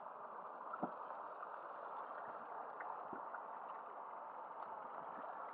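Harbour water gurgling and lapping against a small boat's hull, a steady wash with a couple of faint knocks about a second and three seconds in.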